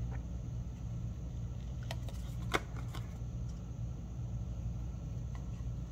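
Small craft scissors snipping through paper: a few short, sharp snips, the loudest about two and a half seconds in, over a steady low hum.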